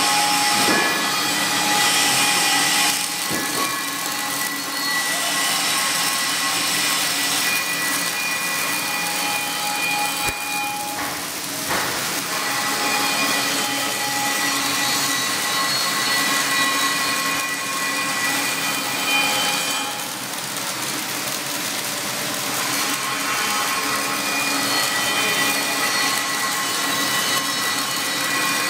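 Flux-cored arc welding on carbon steel plate: the arc crackles and hisses steadily, with a steady machine hum underneath.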